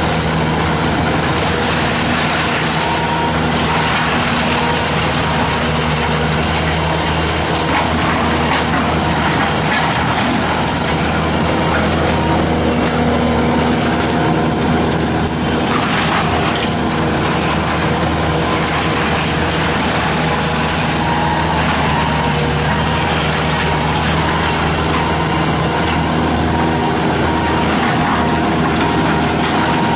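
Bobcat T770 tracked skid steer's diesel engine running steadily while powering a forestry mulcher head.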